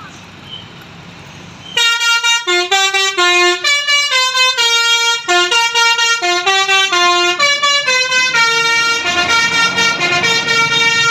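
Basuri musical 'telolet' air horn on a bus, starting about two seconds in and playing a quick melody of short stepping notes, then longer held notes.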